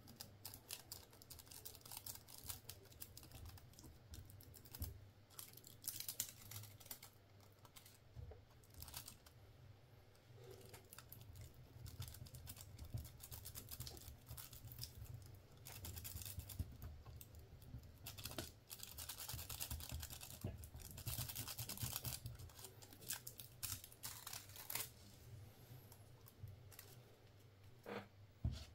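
Faint clicking, tapping and rustling of small hand tools and lure materials being handled while a micro jig is made. A denser stretch of rustling comes in the second half, over a low steady hum.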